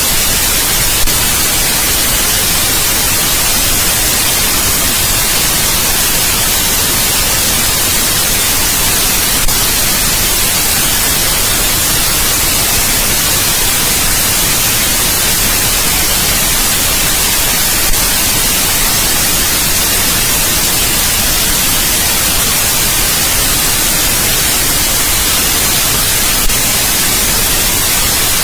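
Steady white noise, an even hiss across all pitches, with a faint click about every eight and a half seconds.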